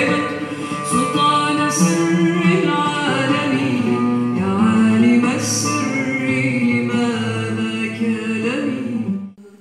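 A woman singing while accompanying herself on the oud. The music cuts off suddenly near the end.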